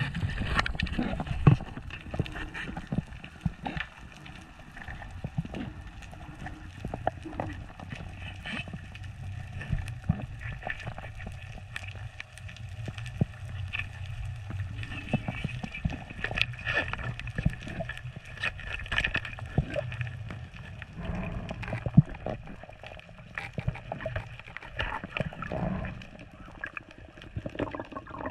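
Muffled underwater sound of a freediver swimming up from a reef: a low rush of water with many scattered sharp clicks and crackles.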